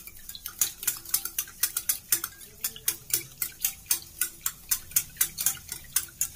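Wire whisk beating thinned curd in a small metal bowl, mixing in the spices for raita. The wires click quickly and evenly against the bowl's sides, about four times a second.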